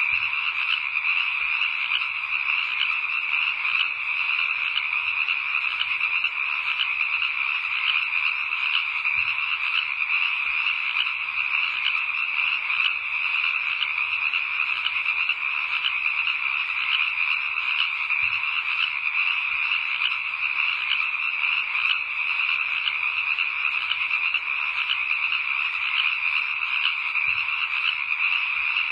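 Dense, steady night chorus of frogs calling, many rapid overlapping calls with no pause.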